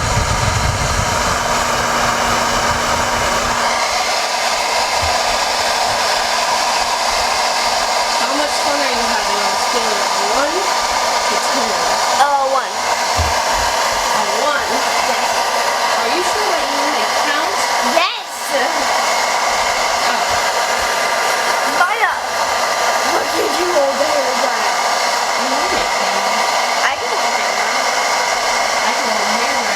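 Handheld hair dryer running steadily, with its sound dipping briefly four times.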